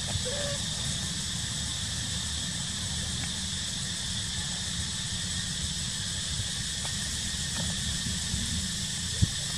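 Steady outdoor forest ambience: a constant high insect drone with a low rumble of wind on the microphone. There is a brief faint squeak about half a second in and a single sharp tap near the end.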